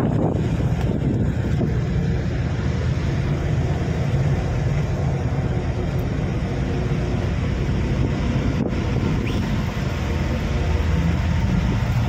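A boat's engine running steadily, a constant low drone, with wind on the microphone.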